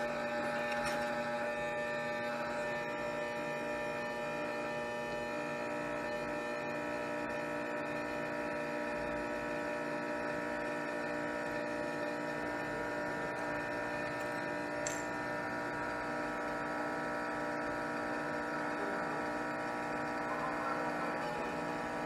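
Steady electrical hum of workbench equipment, made of several held tones at an even level, with one faint click about 15 seconds in.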